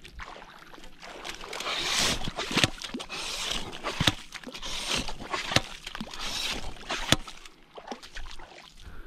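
Yabby pump working a wet sand flat: repeated strokes about every second and a half, each a squelching suck and gush of wet sand and water with a sharp click.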